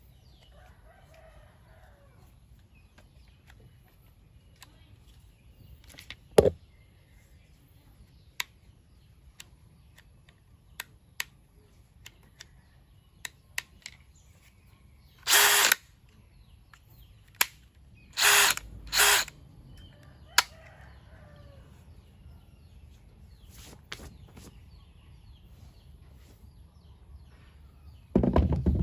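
DeWalt DCD791 18V brushless cordless drill run in three short trigger bursts, each under a second, the last two close together. Scattered clicks and a knock come from the drill being handled between runs. A rooster starts crowing at the very end.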